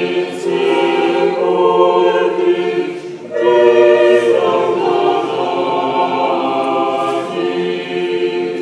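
Unaccompanied choir singing long, held chords. About three seconds in the voices break off briefly between phrases, and the next chord comes in louder.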